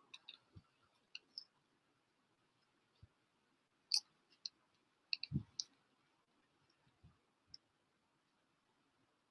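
Scattered faint clicks and a few soft low thumps from the headphones and recording device being handled, with a sharper cluster of clicks around four to five seconds in.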